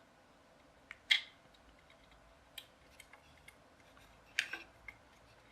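Scattered sharp plastic clicks and taps from an opened toy gun being handled and its trigger worked: a loud click about a second in, single ticks after, and a quick cluster of clicks near the end. No sound effect comes from the gun's speaker.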